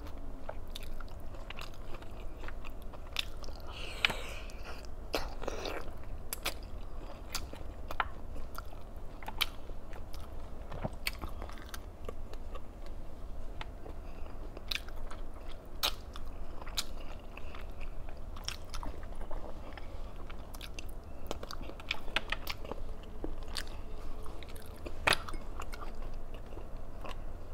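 Close-miked chewing and biting of a person eating, with scattered sharp mouth clicks and crunches over a low steady hum.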